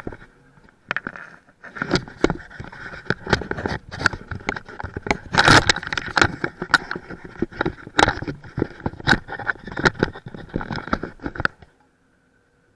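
Irregular knocks, clatter and scraping of hard objects being handled, for about eleven seconds, stopping shortly before the end.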